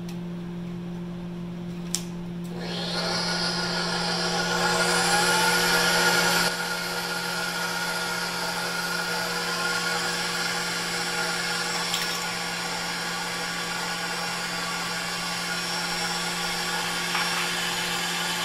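Electric stand mixer whipping egg whites for meringue: a click, then the motor starts about two and a half seconds in, its whine rising as it speeds up, then dropping sharply a few seconds later to a steady run as the whites froth.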